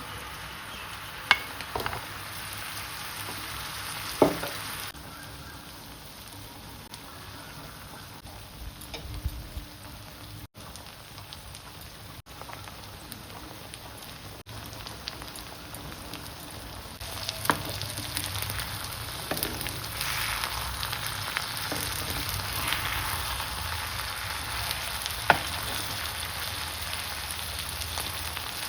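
Food sizzling as it fries in a pan, stirred, with a few sharp knocks of the utensil against the pan. The sizzling grows louder a little past halfway.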